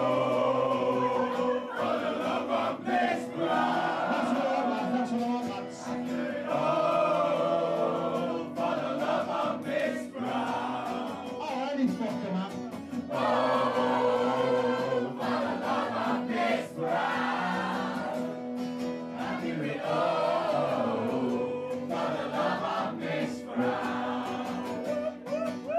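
Acoustic guitar strummed under a man singing into a microphone, with a roomful of people singing along. The sung lines come in phrases, broken by short pauses every few seconds.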